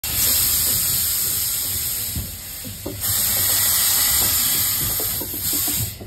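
Steam hissing loudly from the U-class narrow-gauge steam locomotive Zillerthal in two long blasts, the first about two seconds and the second about three, with a short dip between. Low irregular knocks from the carriage running on the rails sound underneath.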